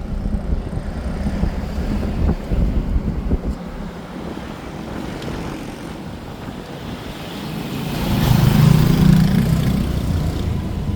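Road noise from a moving vehicle: a steady low rumble with wind, swelling louder for a couple of seconds about eight seconds in.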